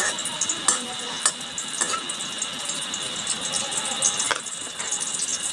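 Garlic and onions sizzling in hot oil in a pan: a steady high hiss with sharp pops of spattering oil, several in the first two seconds and one more past four seconds.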